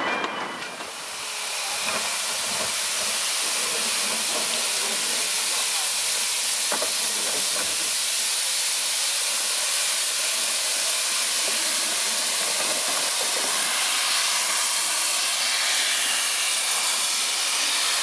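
Steady, fairly loud hiss of steam escaping from an 1877 De Winton vertical-boiler 'coffee-pot' steam locomotive.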